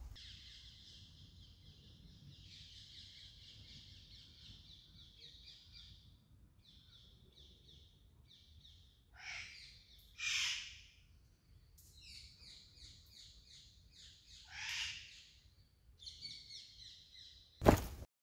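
Forest birds singing: high, rapid chirping trills and repeated call phrases, with three louder calls near the middle. A sudden loud click near the end, followed by a brief dropout.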